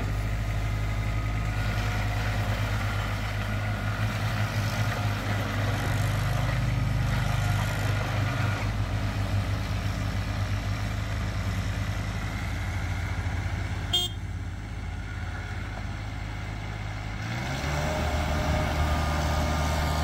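Kubota 1.1-litre three-cylinder diesel of a Stag TL425 stand-on tracked loader running under operation, its engine speed rising for a couple of seconds and dropping back, then climbing again near the end. A single sharp click partway through.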